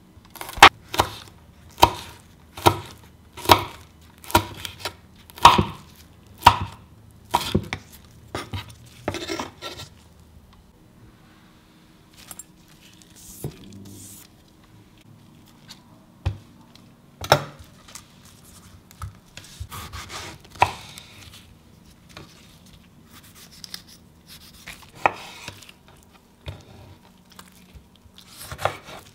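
Chef's knife chopping a red chili pepper on a wooden cutting board: sharp knocks of the blade on the board about once a second for the first ten seconds, then a quieter stretch with only a few scattered knocks.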